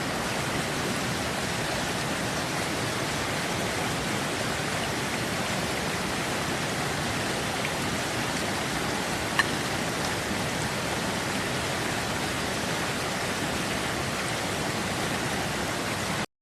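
Steady rush of river water, with a single sharp click about nine seconds in. The sound cuts off abruptly near the end.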